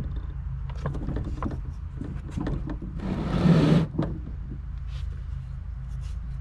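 Sta-Rite Dura-Glas pump housing being pushed and worked by hand onto the motor's seal plate: scattered light knocks and clicks of the parts meeting. About three seconds in, a louder scraping rub lasts about a second. A steady low hum sits underneath.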